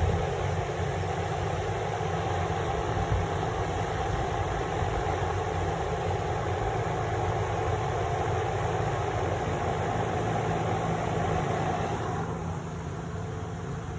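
Electric fan running with a steady hum, which grows quieter about twelve seconds in.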